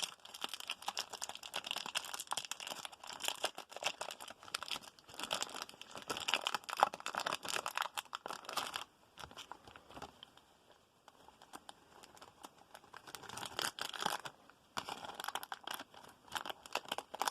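A trading-card pack's wrapper crinkling and tearing as it is opened by hand, in two spells of crackling with a quieter pause in the middle.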